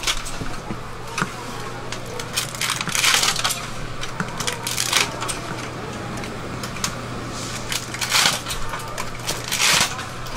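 Scissors snipping through a bundle of dragon's beard candy strands: several short, crisp, hissy snips with small metallic clicks.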